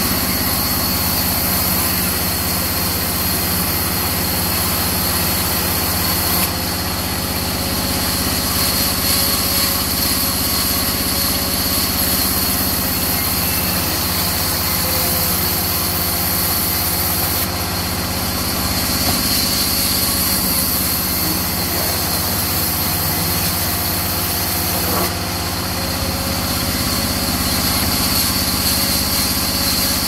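Large sawmill band saw running steadily as it rips mahogany boards into planks, a continuous machine drone. The sound shifts slightly three times: about a fifth of the way in, a little past halfway and near the end.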